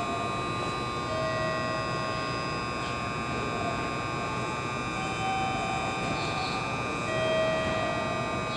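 Steady electrical whine and hum of a Meitetsu 3150-series electric train standing at the platform with its auxiliary equipment running. Several high steady tones sit over a low rumble, and short held lower tones come and go every few seconds.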